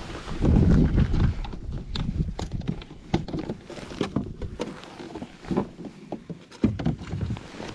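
Scattered knocks and clicks of gear being handled and feet shifting inside a plastic fishing kayak, with wind buffeting the microphone for about the first second.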